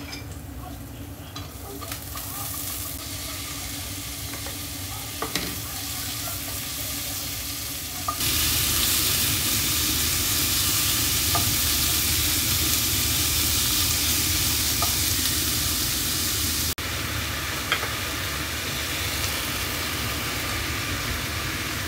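Food sizzling in a frying pan, with a few light clicks of a utensil. The sizzle gets louder about eight seconds in and breaks off for an instant about seventeen seconds in.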